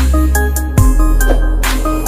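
Electronic dance music with heavy bass and short synth notes, and a sharp falling pitch sweep about a second in.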